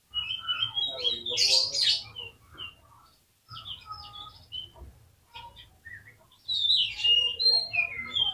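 Oriental magpie-robin (kacer) singing vigorously: a loud phrase of varied whistles and chattering notes, then softer calls, then another loud whistled phrase near the end. It is the full, energetic song that keepers call 'gacor'.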